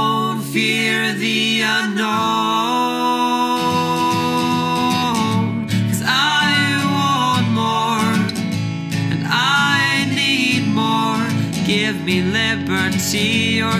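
Solo acoustic song: acoustic guitar accompanying a sung vocal line that holds long notes.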